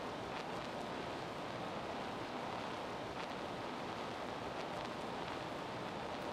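Steady rushing outdoor background noise with no distinct events, unchanged throughout.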